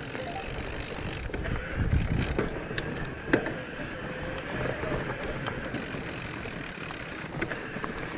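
Mountain bike rolling over a rough trail: steady tyre rumble with a few sharp rattling knocks from the bike.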